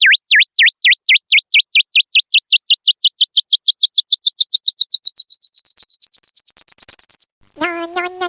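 Electronic sine-wave tone warbling up and down, its pitch and the speed of the warble both climbing until it is shrill and fast. It cuts off suddenly about seven seconds in, and after a brief gap a buzzy, pulsing synthesized tone starts near the end.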